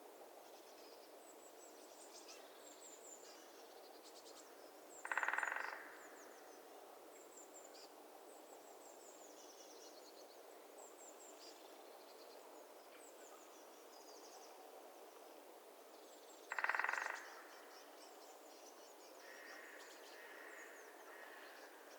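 Woodpecker drumming: two short, rapid rolls of about a second each, the loudest sounds here, over faint, high chirps of small birds and a soft steady hiss of winter swamp ambience.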